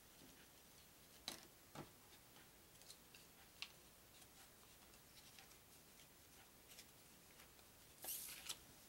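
Faint handling of thin cardboard trivia cards: a few scattered small clicks and taps, then a brief rustle near the end as a strip of cards is slid along the table.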